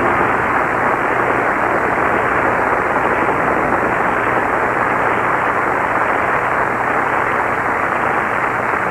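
Studio audience cheering and applauding steadily.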